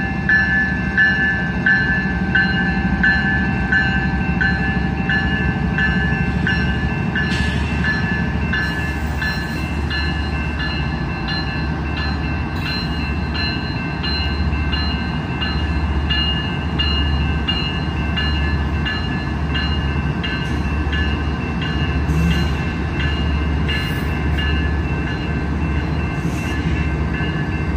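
Several diesel locomotives of a freight train rumbling steadily past at close range, while the grade-crossing bell rings in a regular rhythm of about two dings a second.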